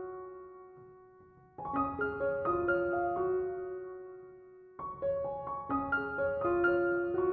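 Background music: a gentle piano melody in short phrases of struck notes, each phrase ringing out and fading before the next begins, with new phrases starting about one and a half seconds in and again near five seconds.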